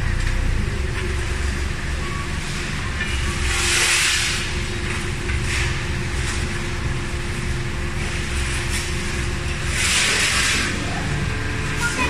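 Komatsu forklift's engine running steadily close by, with two short hissing bursts, one about four seconds in and one near ten seconds.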